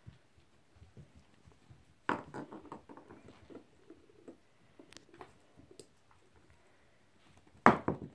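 Six-week-old puppies playing among toys: light scuffling and patter of paws and toys, with a sharp clatter about two seconds in followed by a run of smaller knocks, and another, louder clatter near the end.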